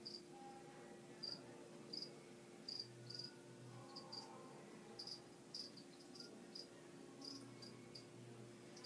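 Faint chirping insect: short high-pitched chirps, one or two a second at uneven intervals, over a steady low hum.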